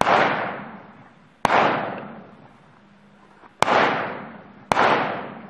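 Four gunshots at uneven intervals of one to two seconds, each with a sharp crack and a long echo fading over about a second.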